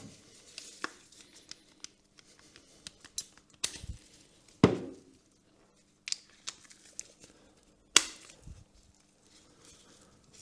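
Hand tools being handled: scattered small clicks and a few sharp knocks, the loudest a little under five seconds in and another about eight seconds in.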